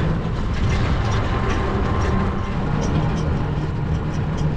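Steady low rumble of a moving e-rickshaw (tuktuk) ride, wind and road noise on the microphone, with light rattling clicks.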